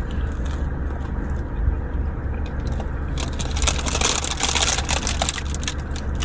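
Steady low rumble of a car's engine and cabin. From about three seconds in, a stretch of crinkling, rustling crackle that fades out a couple of seconds later.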